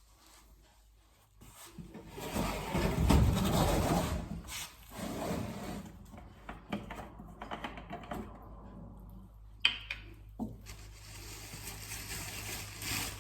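Household handling noises: a few seconds of loud rubbing, then quieter rubbing, then two sharp knocks a little under a second apart and a faint steady hiss.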